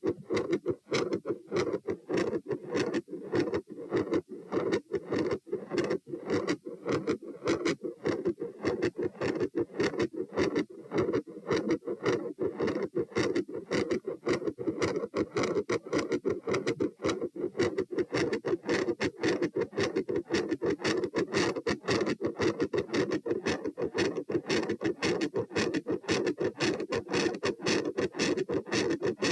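Heartbeat heard through a stethoscope with a loud murmur that runs almost continuously between the beats, giving a steady, rasping pulse pattern.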